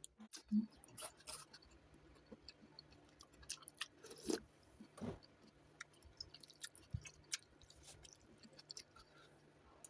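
A person chewing a mouthful of noodles with vegetables and pork: faint, irregular wet smacks and clicks from the mouth, with a few louder ones scattered through.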